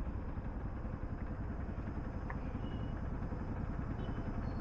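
Motorcycle riding at cruising speed: steady engine and road noise with wind rumbling over the microphone.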